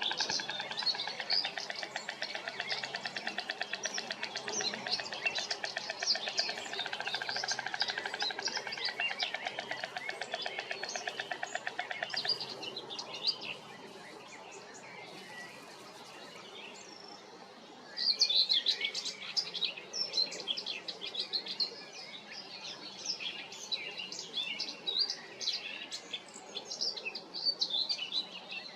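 A pair of white storks clattering their bills together on the nest, a fast, even wooden rattle lasting about twelve seconds before it stops: the greeting clatter when one partner lands at the nest. Small songbirds chirp in the background, more clearly in the later part.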